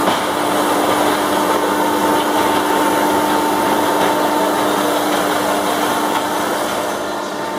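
Industrial cutting press and its progressive feed system running: a steady machine whirr with two held tones over a noisy hiss, with a light click at the very start.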